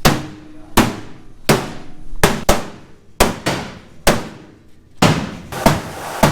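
Heavy hammer blows on a demolition derby car's steel body panel, about a dozen irregular strikes, each ringing briefly, as the sheet metal is beaten into a crease and folded over.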